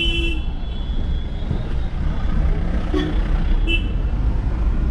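Steady low rumble of a moving vehicle, engine and road noise, with a few short high-pitched tones near the start and again about three and a half seconds in.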